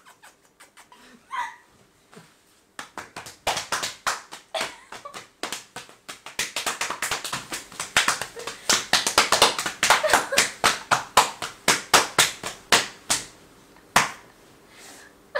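Rapid, irregular clicking and tapping, dense for several seconds and then thinning out, with one sharper knock near the end.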